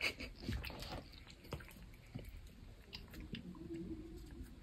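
A cat chewing a bite of a meat stick treat: soft, wet, irregular jaw clicks, busiest in the first second, then a few scattered ones.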